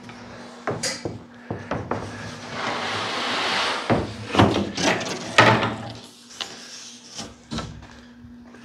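A large, thin sheet of Baltic birch plywood being lifted, slid and flexed off a saw table. A rushing scrape swells as it slides over the table. Several sharp knocks and thumps of the panel follow, the loudest about four and a half and five and a half seconds in.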